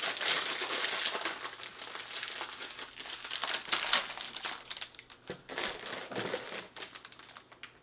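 Plastic snack packaging crinkling and rustling as it is handled, dense for the first few seconds and thinning to scattered rustles and taps near the end.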